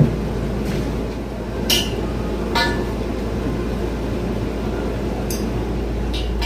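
A few sharp metal clinks, spaced irregularly a second or more apart, over a steady low hum.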